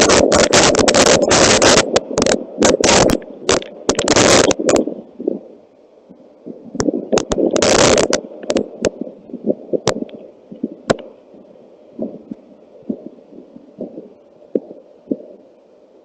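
Loud bursts of rushing noise broken by crackling thumps, stopping and starting through the first five seconds and again briefly near the eighth second, then dying down to scattered sharp clicks over a faint steady hum.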